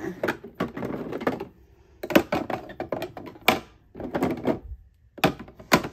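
Sharp, irregular plastic clicks and clacks of small clear acrylic organizer drawers being slid in and out and makeup items set down in them, with light rustling between.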